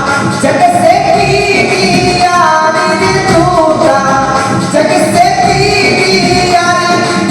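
Devotional chetavani bhajan music: a melody of held notes moving up and down in steps over steady accompaniment.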